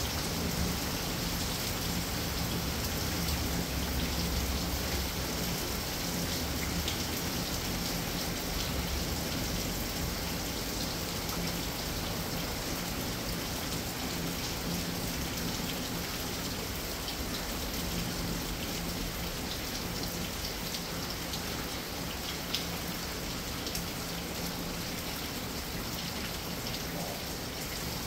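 Steady rain falling and pattering on a surface, even and unbroken, with one sharper tap about two-thirds of the way through.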